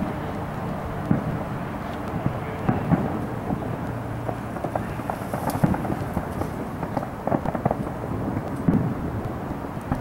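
Aerial firework shells bursting: an irregular run of booms and sharp pops over a steady rumbling background.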